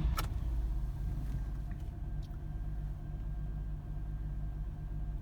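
2007 Mazda 6's 3.0 L V6 idling just after starting, the rumble settling over the first second, with a rough, uneven idle from an occasional cylinder 2 misfire that stumbles but does not go fully dead.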